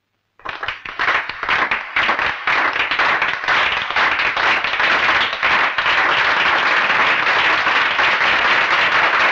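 A crowd applauding: scattered claps start suddenly about half a second in and swell within a couple of seconds into steady, dense applause.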